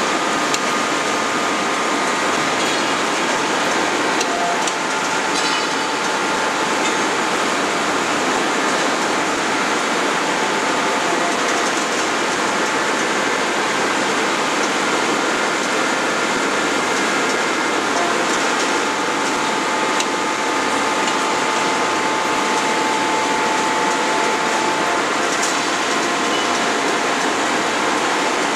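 Steady industrial machinery noise in a forging shop: an even rush with faint high whining tones, and no hammer blows.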